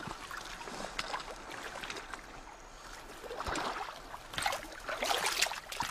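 Water splashing and dripping as a net is hauled up out of a dam, with irregular trickles and small splashes that grow louder in the second half.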